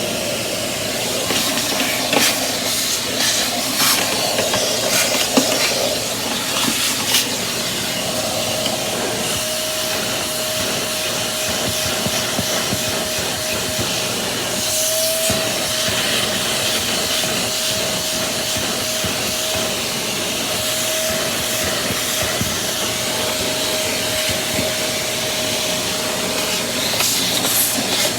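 Riccar vacuum cleaner running steadily with a whining motor tone, sucking up loose dirt and debris, with a few clicks and rattles in the first several seconds.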